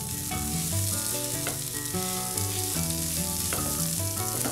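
Mashed boiled potatoes and onion-spice masala sizzling in oil in a nonstick frying pan while a spatula stirs them into the masala, with a few brief scrapes of the spatula. Background music with held notes plays under it.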